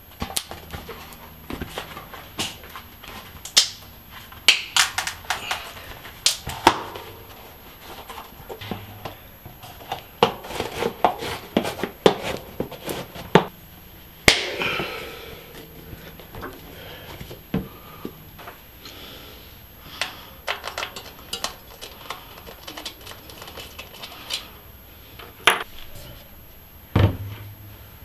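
Bicycle parts and tools being handled: irregular clicks, taps and clinks, with a louder clack about halfway and a dull thump near the end.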